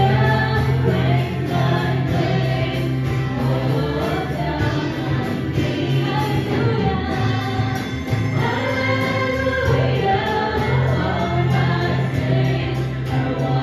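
Worship team of male and female singers singing a praise song together into microphones, accompanied by acoustic guitar, amplified through a church sound system.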